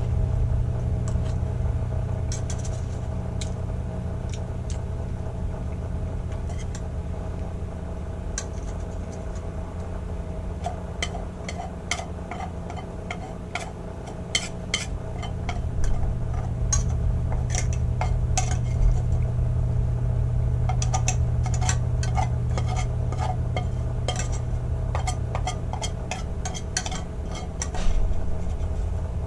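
Metal cutlery scraping and clinking against a metal bowl while eating, in scattered sharp clicks that grow frequent from about a third of the way in, over a steady low hum.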